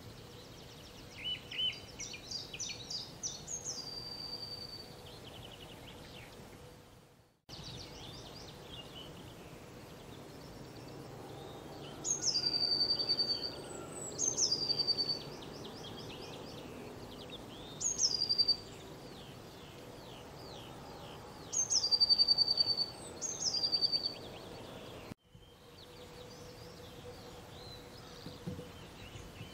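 Wild songbirds singing outdoors. One bird repeats a short high phrase about five times, a quick run of notes dropping into a drawn-out lower note, with fainter calls from other birds behind it. The sound drops out briefly twice.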